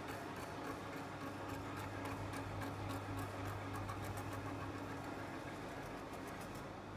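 Slide projectors running: a steady low fan and motor hum with faint, irregular ticking over it.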